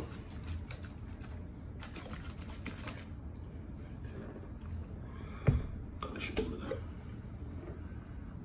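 A glass jar of sour cherry pulp and spirits being tilted and turned by hand, with scattered soft knocks and clicks from the jar and its lid; one sharper click about five and a half seconds in.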